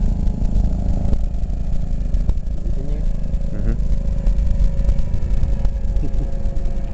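Low, steady rumble of Space Shuttle Discovery's ascent, heard from far away.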